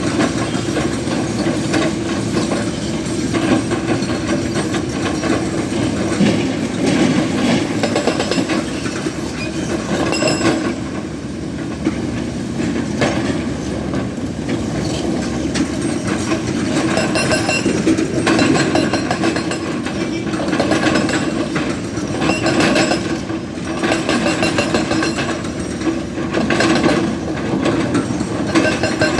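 A hydraulic rock breaker on a Tata Hitachi Zaxis 220 LC excavator hammering rock in spells of rapid blows, over the steady running of the excavator's engine.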